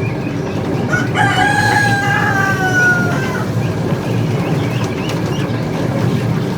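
A rooster crows once, a single call of about two seconds that falls slightly in pitch. Under it, a chicken-feather plucking machine runs with a steady low rumble.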